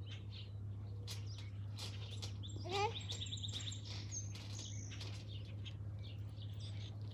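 Songbirds chirping in the background, with a quick trill of repeated high notes about three seconds in, over a steady low hum.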